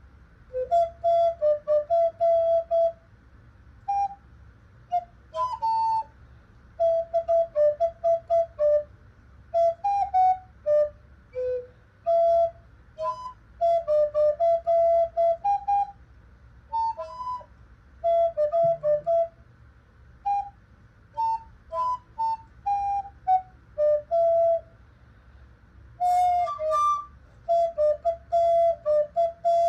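Alto recorder playing a quick melody in short, tongued notes, phrase after phrase with brief gaps between.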